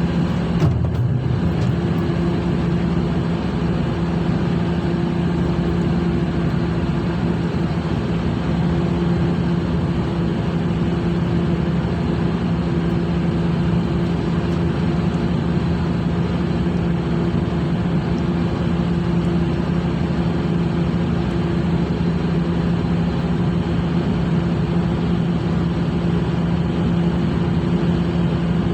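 Steady, unchanging drone of a ship's engine machinery, a low hum with a steady pitch. There is a brief knock about a second in.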